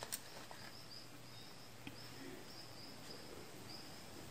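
A knife clicks sharply against a plastic tub near the start while scooping soft fresh cheese, with a smaller click about two seconds in. Behind it, a faint high chirping repeats evenly, two or three chirps a second.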